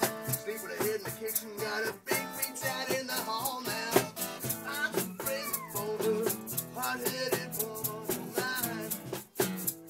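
Live acoustic band music: an acoustic guitar strummed, an egg shaker keeping a steady fast rattle, and a cajon, under a wavering sung melody.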